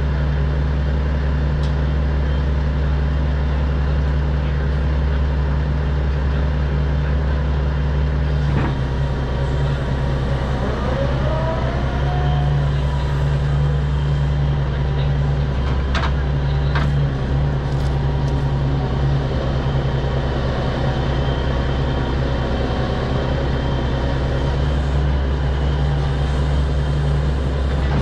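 Diesel engine of a truck-mounted knuckleboom log loader running steadily under hydraulic load as the boom and grapple work, with a short rising whine about ten seconds in. A few sharp knocks come around the middle.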